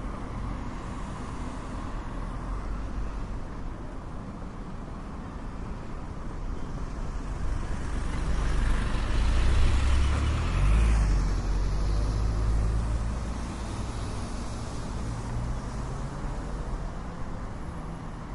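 Urban road traffic: a steady low rumble of engines and tyres, swelling louder for a few seconds about halfway through as a vehicle passes close, then settling back.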